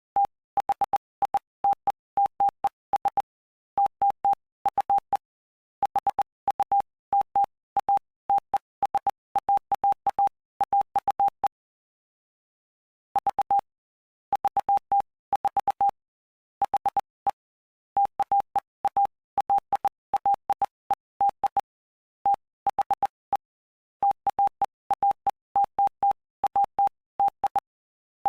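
Morse code sent as a single steady tone, keyed on and off in dots and dashes, spelling out text from the Gospel of Mark chapter 8. There is a pause of nearly two seconds about midway.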